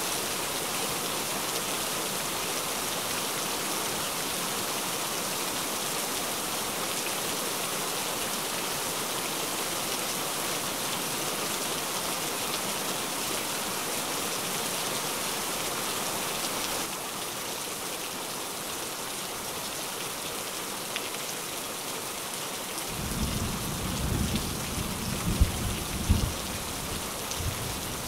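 Steady rain with no pauses, dipping slightly in level partway through. Near the end a roll of thunder rumbles low for a few seconds, with a couple of louder peaks.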